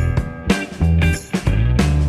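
Background rock music with electric guitar, bass and a steady beat.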